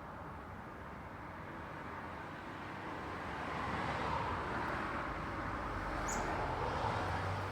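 Road traffic: a steady wash of tyre and engine noise that swells as vehicles pass, about halfway through and again near the end, with a low engine hum coming in near the end. A brief high chirp sounds about six seconds in.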